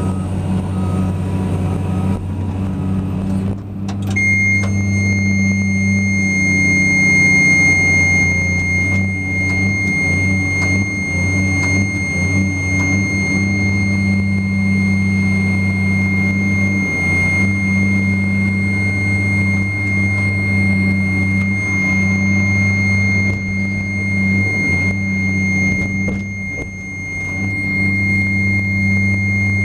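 Cat 345D excavator's diesel engine running steadily, heard from inside the cab. About four seconds in, after a click, a steady high whine starts and holds.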